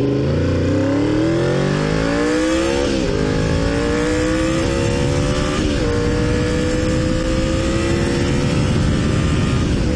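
A 1987 Honda VFR's V4 engine revving up as the motorcycle accelerates, with short breaks in the climbing pitch about three, four and a half and six seconds in, as at gear changes. After the last break it pulls steadily, slowly rising, with wind rushing over the helmet-mounted microphone.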